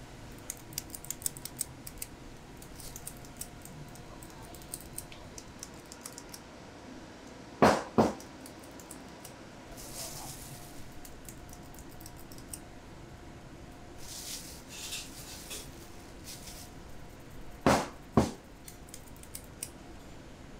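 Hand food-preparation noises at a steel work table: small scattered clicks and a crinkling of plastic wrap, over a faint steady hum. Twice, about ten seconds apart, comes a quick pair of sharp, loud knocks.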